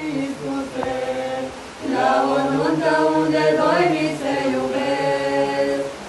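Mixed group of young men's and women's voices singing a Christian song in unison and harmony, unaccompanied, with long held notes; the singing grows louder about two seconds in.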